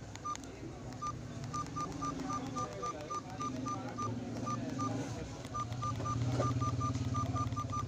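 Nokia 210 keypad beeping with each key press as digits are entered, short beeps of one pitch at about three a second with a brief pause midway, over a low background hum.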